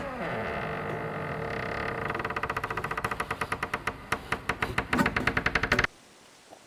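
A door creaking open slowly: a click, then a long creak whose pitch falls, breaking into rapid creaking pulses that speed up before it cuts off sharply about six seconds in.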